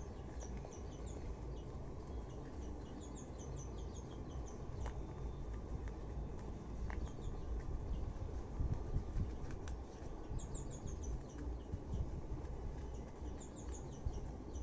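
Small bird chirping in short quick runs of high notes, four times, over a steady low background rumble.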